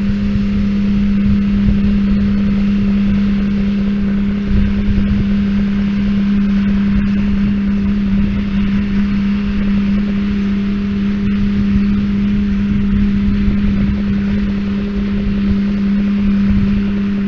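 Tractor and hay baler running steadily in the field, a constant low hum that holds one pitch without revving.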